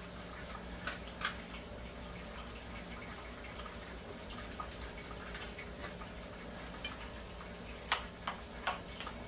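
Faint steady hum with scattered light clicks and taps; near the end, a spatula scraping and tapping in a skillet of seasoned ground beef.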